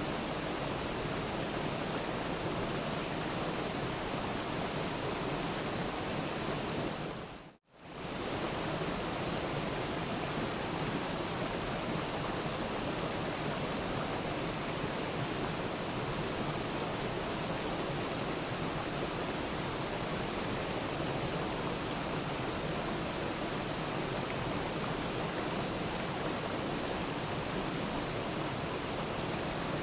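Waterfall rushing steadily. About seven seconds in it fades quickly to silence for a moment, then comes back at full level.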